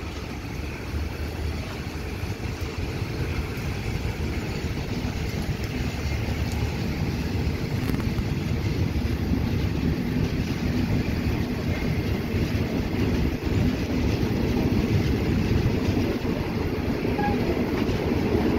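Passenger train rolling slowly along the track, heard from an open carriage window: a steady low running noise of wheels and carriage that grows louder as it goes.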